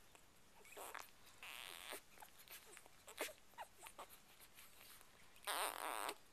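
Two-day-old chocolate Labrador Retriever puppies making faint, short squeaks and whimpers, with one louder cry a little after five seconds in.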